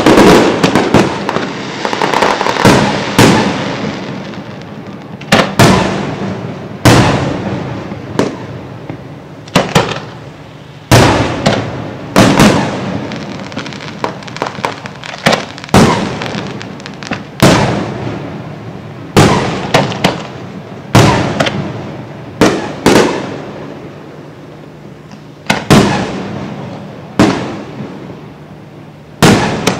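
Aerial fireworks display: shells bursting one after another, a loud bang about every one to two seconds, each fading out in a rolling echo. A quick run of crackling bursts comes in the first few seconds.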